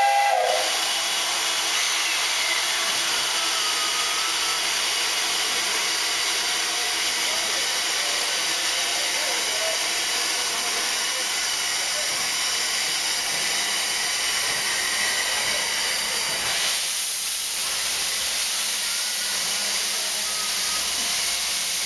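Steam locomotive 58654, a JNR Class 8620, hissing steam steadily as it pulls out. The tail of its steam whistle cuts off just as the hiss begins.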